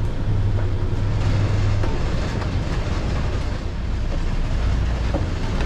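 Catamaran's engine running at low revs with a steady hum; its note drops about two seconds in and settles deeper near the end, as the boat is manoeuvred while anchoring. A steady hiss over it.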